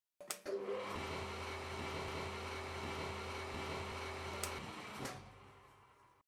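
15-inch thickness planer with a spiral cutterhead switched on and running with no wood in it, a steady motor hum and cutterhead whir. About four and a half seconds in it is switched off and winds down.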